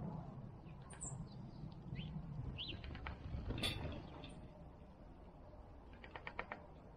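Small backyard birds giving a few short chirps, with a sharp click a little past the middle and a quick run of about six clicks near the end.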